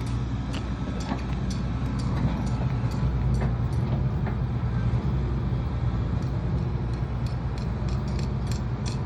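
Vehicle engine idling with a steady low rumble, with scattered light metallic clicks and clinks over it.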